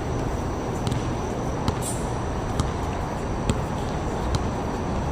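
A basketball bouncing on a hard court about once a second, as in a slow dribble, over a steady low rumbling background noise.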